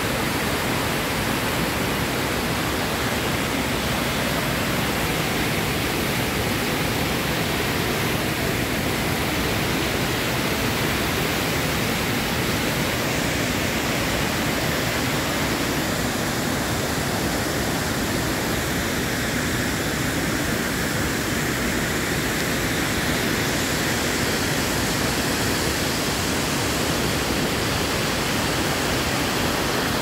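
Large waterfall pouring over a wide rock ledge: a steady, even rush of falling water that does not change.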